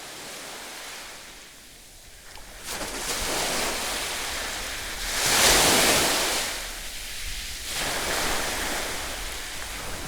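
Ocean surf breaking on a beach: a steady wash of waves that swells and fades several times, the biggest surge about halfway through.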